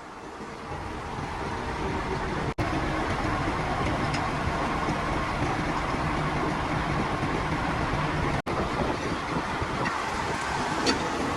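Steady road vehicle noise that swells over the first two seconds, broken by two very short dropouts.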